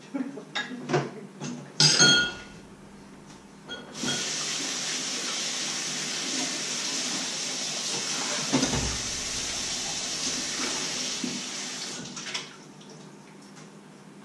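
Kitchen tap running into a sink for about eight seconds, a steady hiss that starts and stops abruptly. Before it, dishes and pans clatter, with one ringing metal clank about two seconds in.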